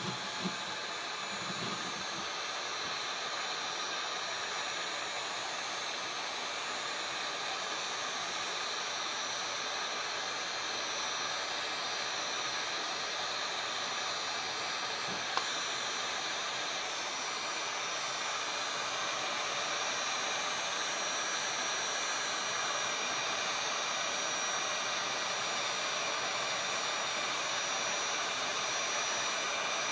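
SEEKONE 1800-watt heat gun running on its low setting: a steady rush of fan and hot air, with a faint thin high whine. A single small click about halfway through.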